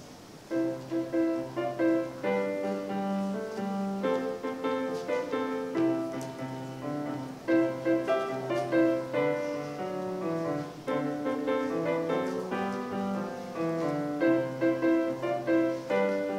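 Kawai grand piano played solo, with a piece starting about half a second in and going on as a steady run of notes in both low and high registers.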